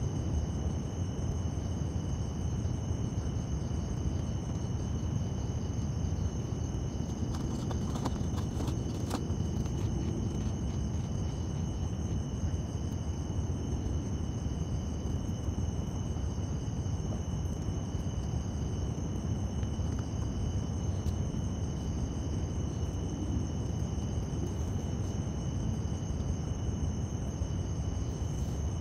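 Portable gas canister stove burning steadily under a metal pot of water heating to steam, a constant rushing hiss. A few light clicks of handling about eight to nine seconds in, and a steady high-pitched whine behind it.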